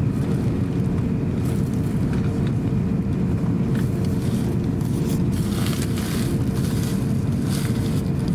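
Cabin noise inside an Airbus A350-900 taxiing on the ground: a steady low rumble from the Rolls-Royce Trent XWB engines at taxi idle and the rolling airliner, with a faint steady hum and light ticks or rattles now and then.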